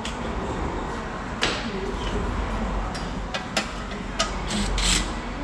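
Scattered sharp metallic clinks and taps from tools working on the underside of a car, as a starter motor is being fitted. There are about seven of them over a low, steady hum.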